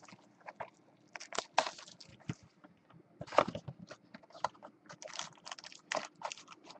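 Trading cards and their packaging being handled: irregular small clicks with a few brief scraping rustles.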